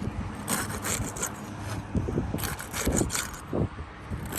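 Old, brittle 3-tab asphalt shingles being pried up with a tool, scraping and crackling as their seal strips pop loose. There are two longer bursts of scraping, about half a second in and about two and a half seconds in, with a few sharp knocks in between.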